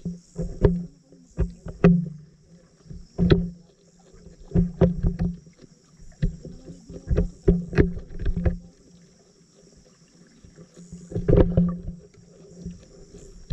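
Underwater sound from a submerged camera: irregular sharp knocks and clicks, some in quick clusters, over a low hum that comes and goes.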